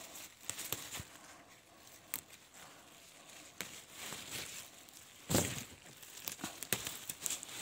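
Leaves rustling and crackling as leafy shoot tips are snapped off a plant by hand, with scattered small snaps and a louder rustle about five seconds in.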